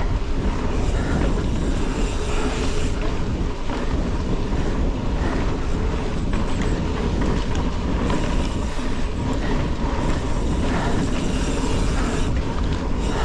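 Mountain bike rolling along a dirt forest singletrack: a steady rush of wind on the action camera's microphone, with tyre noise on the dirt and a few light rattles and clicks from the bike.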